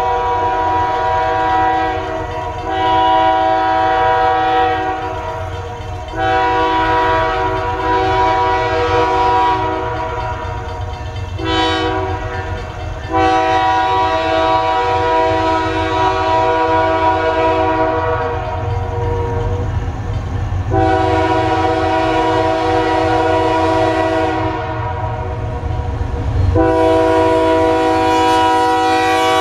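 A Canadian Pacific AC4400CW locomotive's air horn sounds a chord in repeated long blasts, with one short blast about a third of the way through. The pattern of long, long, short, long is the grade-crossing signal, and the horn carries on with more long blasts over the low rumble of the approaching freight train.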